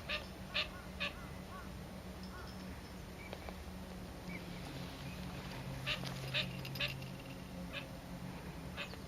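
Eurasian coot giving short, sharp single calls: three quick ones at the start, a group of three about six seconds in, then two more spaced out.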